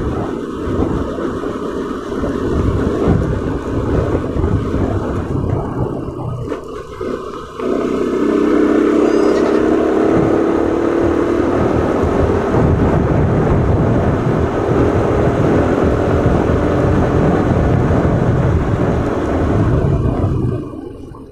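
Motorcycle ride with wind rushing over the microphone and the engine running. About eight seconds in it turns louder and steadier, with a droning engine tone, and it falls away sharply just before the end.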